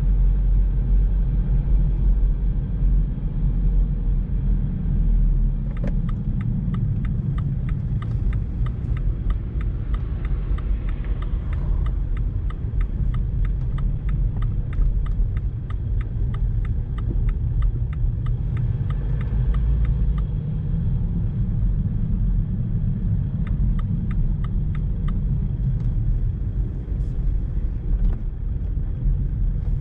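Low road and engine rumble heard inside a slow-moving car, with a turn-signal indicator ticking steadily at about three ticks a second from about six seconds in to about twenty seconds, then again briefly later.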